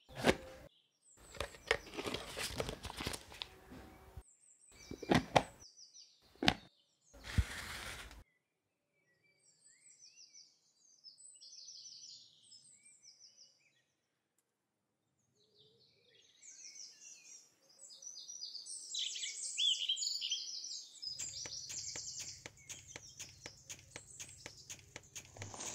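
A few bursts of kitchen handling sound, pouring and knocks of vessels, then a quiet stretch. After it, birds chirp and sing, joined near the end by a fast, even ticking over a low hum.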